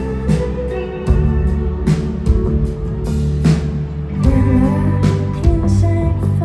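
Live band playing: electric guitar over bass and a drum kit.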